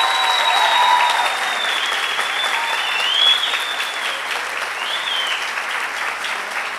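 Audience applauding and cheering, with a long high whistle held over the first four seconds and a shorter one about five seconds in.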